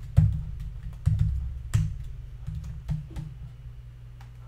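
Computer keyboard keys clicking in short, uneven bursts as a word is typed, over a steady low hum. The clicks are loudest in the first two seconds, then sparser.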